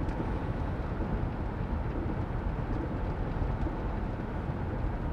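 Steady road and engine noise inside a car's cabin while cruising at about 58 mph, a low, even rumble.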